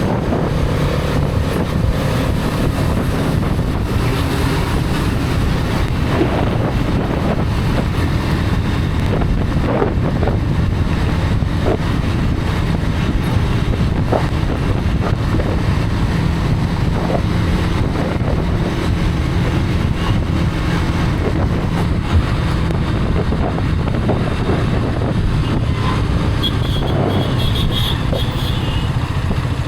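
Hero Karizma XMR's 210 cc single-cylinder engine running at a steady cruise on the move, with wind rushing over the microphone.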